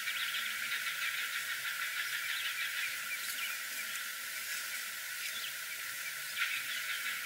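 Wilson's warbler calling: rapid runs of short, high chattering notes over a steady hiss, with one louder single note about six and a half seconds in.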